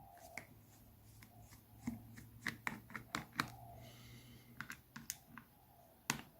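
Faint, irregular light clicks and taps of a small Allen key and tiny screws being worked on a handheld radio's plastic case, bunched in a quick run in the middle, with one sharper click near the end.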